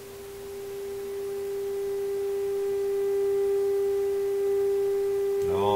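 Steady, pure mid-pitched tone from a Marconi 201A tube radio's speaker: the signal generator's audio modulation on an IF-frequency signal injected at the 6SA7 converter grid during IF alignment. It grows louder over the first three seconds as the signal comes into tune, then holds level.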